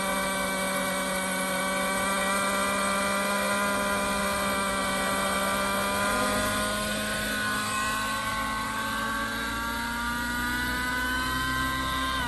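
Nitro (glow-engine) Tron 700 radio-controlled helicopter running, its engine and rotors making a steady pitched sound with many overtones. The pitch sags a little midway and climbs again near the end.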